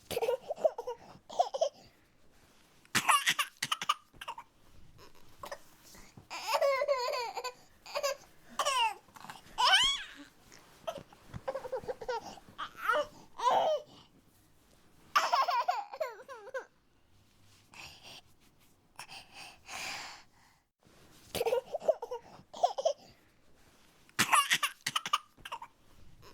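Baby whining and fussing in short, wavering vocal bursts separated by brief pauses.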